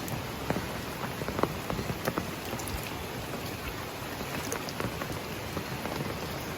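Steady rain, an even hiss with many separate drops tapping sharply close by at irregular moments.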